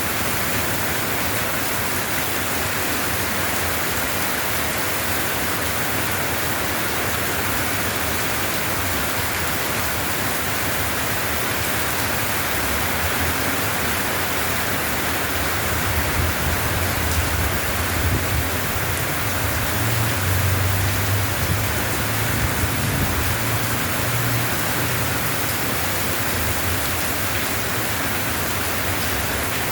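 Steady rain falling, an even hiss. A low rumble swells through the middle and fades away again.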